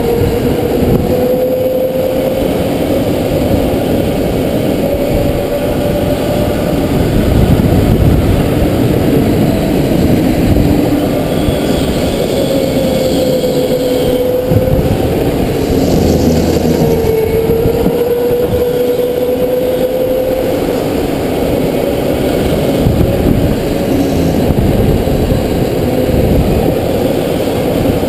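Onboard go-kart motor running flat out around an indoor track, its whine rising and falling as the kart speeds up on the straights and slows for the corners.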